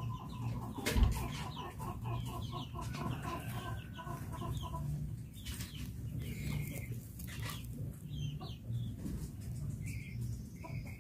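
Chickens clucking in the background, with a rapid run of short, even clucking notes over the first few seconds and scattered higher chirps. A single sharp thump about a second in.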